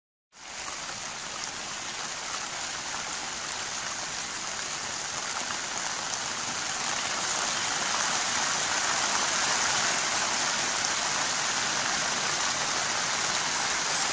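Steady rain falling, starting abruptly about half a second in and growing slightly louder over the first several seconds.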